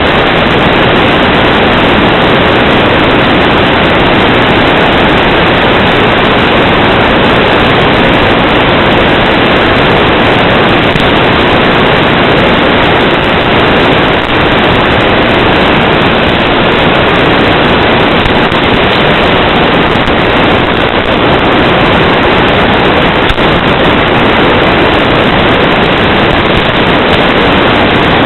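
Loud, steady static hiss with no tones or rhythm in it: the noise of an FPV analog video downlink's audio channel picked up by the recorder.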